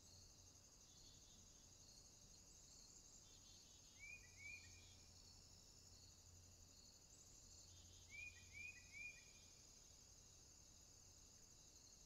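Faint, steady high-pitched chirring of an insect chorus. Two short falling chirps come about four seconds in, and three more about eight seconds in.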